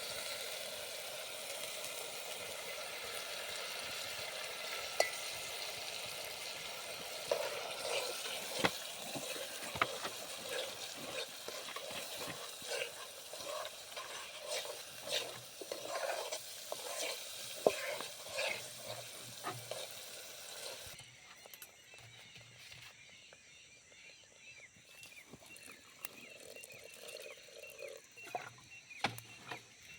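Okra sizzling as it fries in a pan and is stirred, the spoon clicking and scraping against the pan. About two-thirds of the way through the sizzle drops away, leaving scattered clicks from the stirring.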